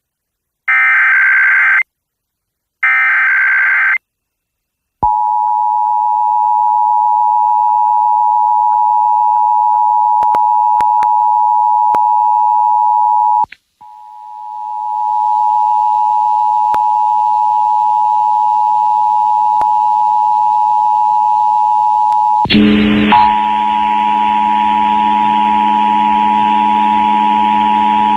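EAS Required Monthly Test on FM radio: the last two bursts of the SAME digital header, a harsh screech of data tones each about a second long, then a pause. Then the two-tone Emergency Alert System attention signal (853 and 960 Hz) sounds steadily for well over fifteen seconds, dropping out briefly about halfway through. A low hum and hiss join it for the last few seconds before it stops.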